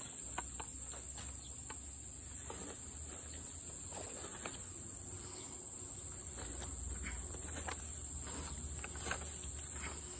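A steady high-pitched insect drone, with scattered light ticks and rustles over a low rumble.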